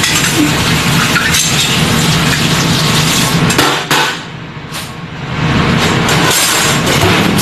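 Dishwashing at a stainless-steel sink: running tap water and the clink of utensils and dishes, over a steady low hum. The rush of noise drops away about four seconds in and comes back nearly two seconds later.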